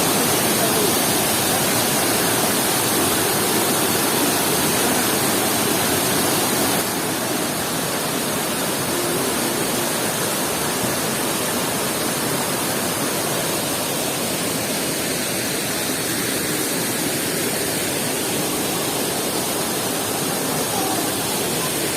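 Water of the Sanaghagra waterfall rushing in a steady roar of noise, which drops a little in level about seven seconds in.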